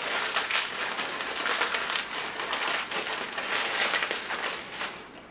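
Graham crackers being crushed by hand inside a plastic zip-top bag: continuous crackling of breaking crackers and crinkling plastic.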